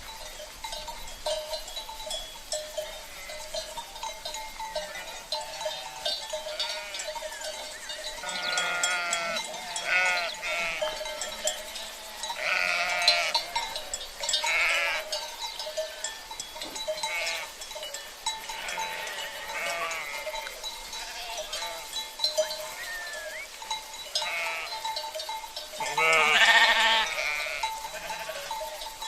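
Sheep bleating again and again, with several wavering calls and the loudest near the end, over the constant clanking and ringing of livestock bells (cencerros).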